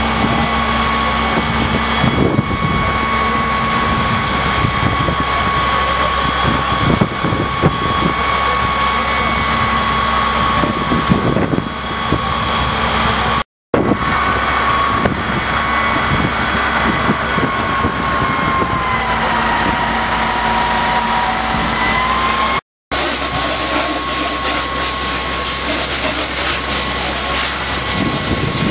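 Fire service vehicle engine running steadily with a high whine over it. The whine dips in pitch and rises back about twenty seconds in. The sound drops out briefly twice.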